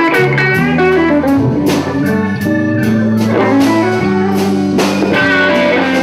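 Live slow blues band: a lead guitar plays bending fill phrases between vocal lines, over held bass notes and steady drum hits.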